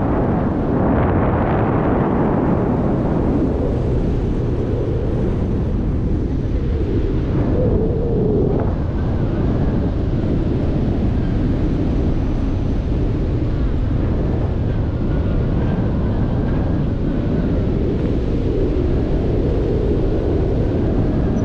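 Wind rushing over an action camera's microphone in paraglider flight: a steady, loud, low rumbling rush.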